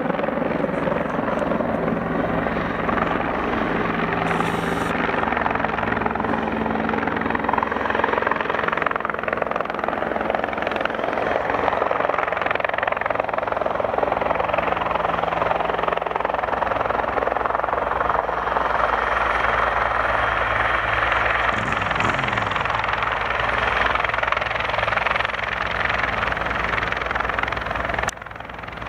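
Bell 412 twin-turbine helicopter in flight: a loud, steady din of rotor chop and turbine noise. Its pitch glides briefly about three-quarters of the way through, and the level drops abruptly just before the end.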